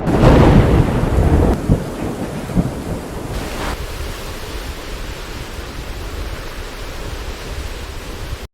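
A clap of thunder that rumbles and fades over about two seconds, followed by steady rain; the sound cuts off abruptly near the end.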